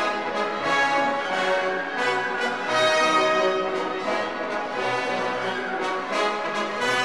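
Orchestral background music with prominent brass, horn-like sustained notes over strings, moving from chord to chord at a steady level.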